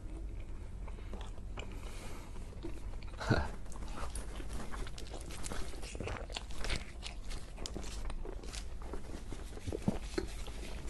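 Biting and chewing cheese pizza and its bread crust: a run of small crunches and mouth clicks, the loudest crunch about three seconds in.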